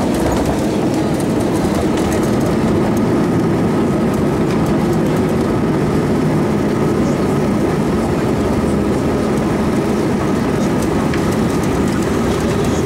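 Steady cabin noise of an Airbus A320-232 rolling on the ground after landing: a low rumble from the airframe and wheels under the hum of its IAE V2500 engines at idle.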